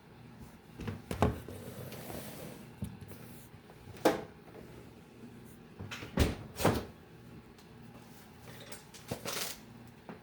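Lunch being packed: food containers and a lunch bag handled, giving a string of separate knocks and clicks as things are picked up and set down, with a brief rustle about two seconds in.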